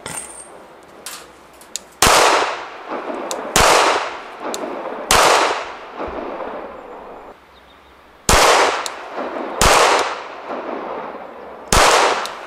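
Six shots from a Glock 34 9mm pistol, fired singly about one and a half to three seconds apart, each followed by a long echoing tail.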